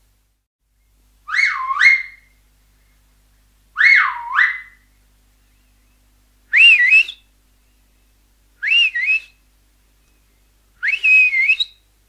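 Finger whistle blown five times, about two seconds apart, each whistle short and sliding in pitch. The first two swoop down and back up; the last three are higher, with a quick dip in the middle.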